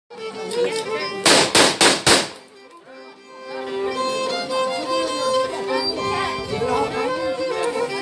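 Violin played with a bow, holding long steady notes of a folk tune that begins about three and a half seconds in. A little over a second in there are four loud thumps in quick succession.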